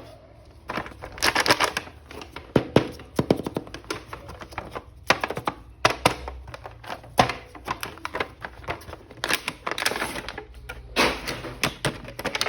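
Hands unwrapping a toy action figure from plastic packaging: irregular crinkles, with sharp clicks and taps of plastic on plastic.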